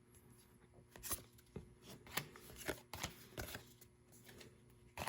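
Pokémon trading cards and their packaging being handled on a table: an irregular run of light taps, clicks and rustles, starting about a second in.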